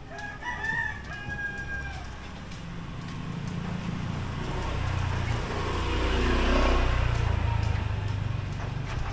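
A rooster crows once, a call of about two seconds. Then a vehicle passes, its engine rumble swelling to a peak about six and a half seconds in and fading again.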